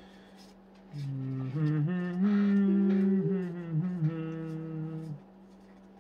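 A person humming a short wordless tune with the mouth closed: held notes stepping up and down in pitch, starting about a second in and stopping about five seconds in.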